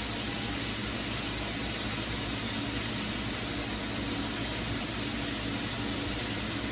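Chunks of beef brisket sizzling steadily in a skillet as they brown.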